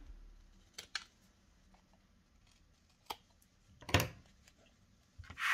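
Scissors snipping through white cardstock to trim a glue tab at an angle: a few separate short snips, the loudest about four seconds in.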